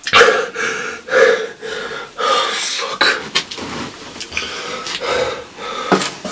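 A man sobbing in distress, with gasping, wheezing breaths and a short shouted curse partway through.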